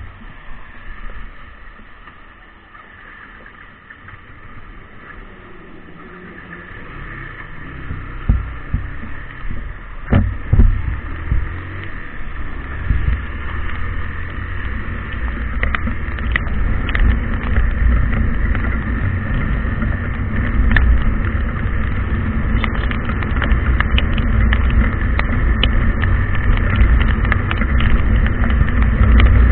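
A vehicle on the move: its low rumble builds up from about a quarter of the way in and then runs on steadily and loud, with scattered clicks.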